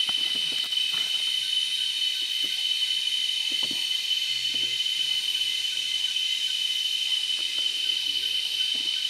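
Steady, high-pitched drone of cicadas and other forest insects, holding one level throughout.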